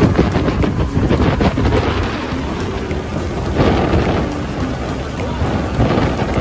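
Wind buffeting the microphone of a moving motorboat, a loud rumbling rush, over the boat's engine and water rushing along the hull.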